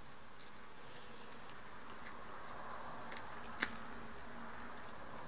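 Cat nibbling at a bouquet of roses: small scattered clicks and crinkles of chewing on the flowers and their plastic wrapping, with one sharper click about three and a half seconds in, over a steady hiss.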